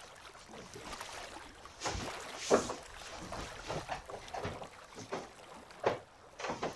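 Handling noise from a person clambering onto a wooden staircase: irregular knocks, footsteps and rustling of a cotton duvet cover, with one louder knock about two and a half seconds in.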